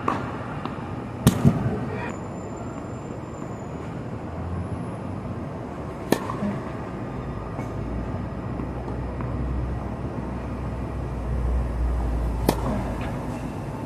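Tennis racket striking the ball on serves: two sharp single pops about six seconds apart, with a quick pair of knocks about a second in, over a steady low rumble.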